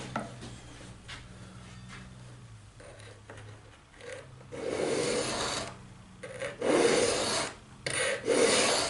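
A hand file pushed across a steel broadhead's edge in about four strokes, starting about halfway in, the first the longest, with light pressure: sharpening the broadhead to a fairly abrupt bevel.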